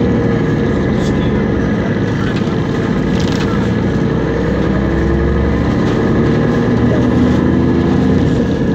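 MAN NL223 city bus's diesel engine and Voith DIWA automatic gearbox heard from inside the cabin, running steadily under way with its engine and transmission note rising in pitch as the bus gathers speed.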